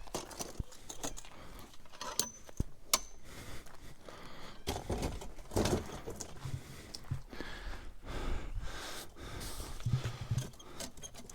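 Rummaging through junk in a dumpster: scattered light knocks and clicks of items being handled and moved, with bursts of rustling.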